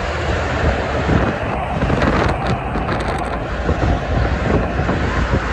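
Steady roar of heavy multi-lane freeway traffic, cars and tractor-trailers passing, with wind buffeting the microphone.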